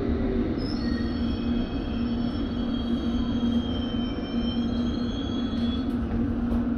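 London Underground train slowing into a station: a steady low hum and rumble, with thin high-pitched squealing from the wheels and brakes starting about half a second in and fading near the end.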